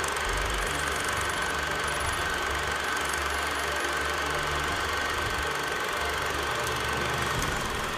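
Steady mechanical running and whirring with a constant high whine, the soundtrack of a channel's animated title intro.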